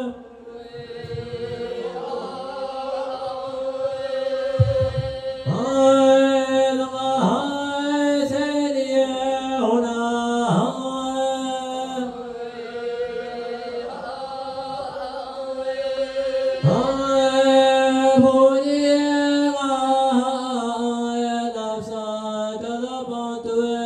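A single voice singing Tibetan lhamo opera chant in long held notes, with sliding changes of pitch between them.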